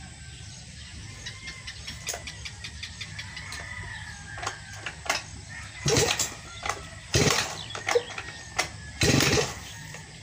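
Backpack brush cutter being pull-started: three short yanks of the recoil starter cord, one to two seconds apart, and the engine does not catch. Light clicks of handling come before the pulls.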